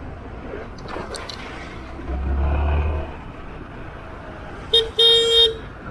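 A vehicle horn honks twice near the end, a short beep and then a longer one, over steady road and wind noise from riding in traffic. A low rumble swells and fades about two seconds in.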